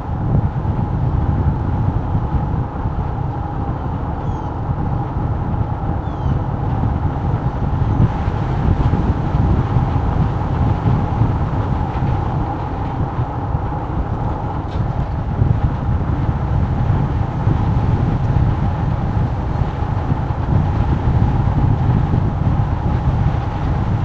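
Steady rumble of a moving vehicle, with a constant mid-pitched hum over it and no change in speed.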